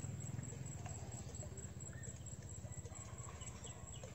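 Live duckling bait peeping faintly a few times, short falling high-pitched peeps, over a low steady hum.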